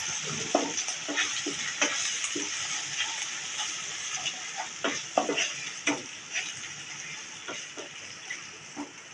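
Spice paste of fried onion, chili, ginger and garlic sizzling in hot oil in a pan while a spatula stirs and scrapes it, with irregular scraping clicks over a steady hiss that slowly fades.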